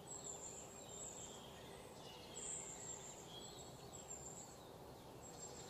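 Faint outdoor ambience with small birds calling: short, very high, falling chirps and a few lower twittering notes at irregular intervals.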